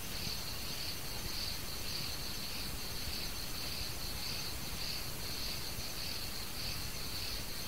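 Insects, crickets by their sound, chirring in a steady high pulsing drone over the even hiss of an old sermon recording.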